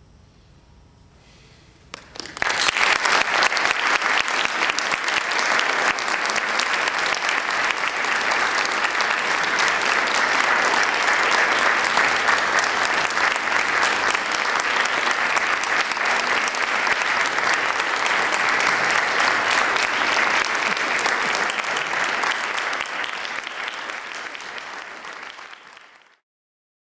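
Audience applauding, breaking out suddenly about two seconds in after a quiet moment, then easing off a little before it cuts off near the end.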